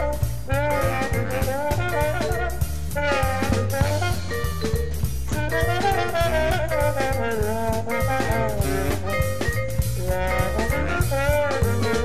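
Upbeat swing-style jazz music: a brass-horn melody over a walking bass line and drum kit.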